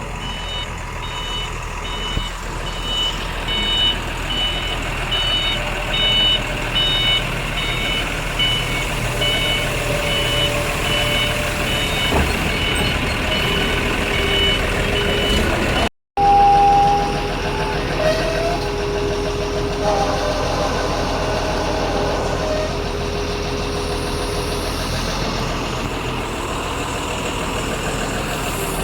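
A vehicle's reversing alarm beeping repeatedly over its running engine. The beeping stops about halfway through at a break in the recording, and the vehicle's steady running sound carries on.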